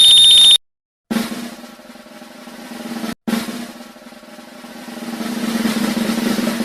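Snare drum roll sound effect. It starts about a second in and fades back, breaks off briefly, then builds in a long crescendo, the drum-roll-before-a-reveal effect.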